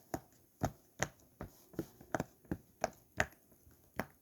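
Silicone pop-it fidget toy bubbles pressed one after another, a short pop about every half second, around ten in a row.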